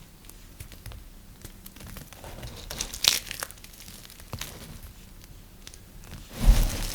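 Knife cutting through dry, brittle soap: scattered crisp crackles and crunches, with a louder cluster about three seconds in and a heavier knock near the end.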